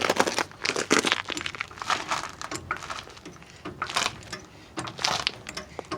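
Floor jack being pumped to lift the front of a 1975 Chevy C10 pickup, a noisy clunk-and-creak about once a second.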